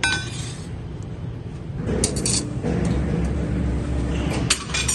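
Thin steel spacer rings from a slitting-line shaft clinking against each other as they are handled, with a few metallic clinks about two seconds in and again near the end, over a low rumble.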